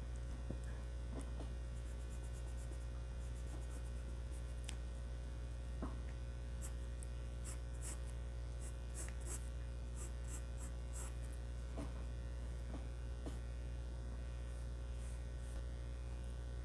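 Graphite pencil scratching faintly on drawing paper in a run of short strokes, mostly between about six and eleven seconds in, over a steady low hum.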